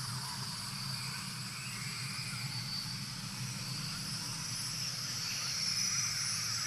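Jungle-style ambience: a steady high drone of insects with a few short chirping calls now and then, over a low steady hum.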